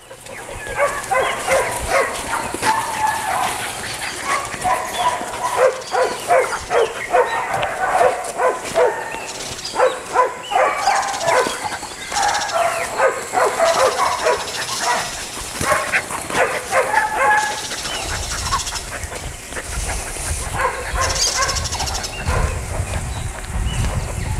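A dog barking repeatedly in quick runs of barks, which stop about two-thirds of the way through; a low rumble follows.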